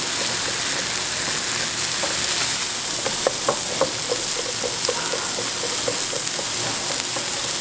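Pork belly sizzling on a large hot iron griddle, a steady hiss with fat spitting in many small pops, a few louder ones about halfway through.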